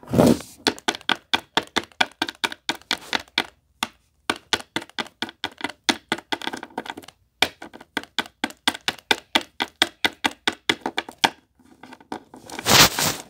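Handling noise: fingers tapping and clicking on the camera, a fast irregular run of sharp taps at about three or four a second with two short pauses, then a louder rubbing burst near the end.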